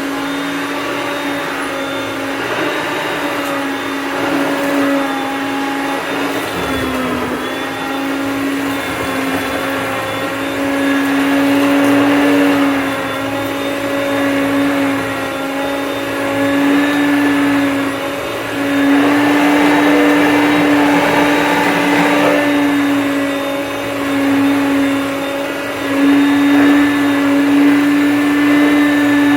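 Hoover Concept upright vacuum cleaner running: a steady motor whine that dips briefly in pitch about seven seconds in, with louder noisy stretches as it picks up dust, paper and debris, strongest around twenty seconds in.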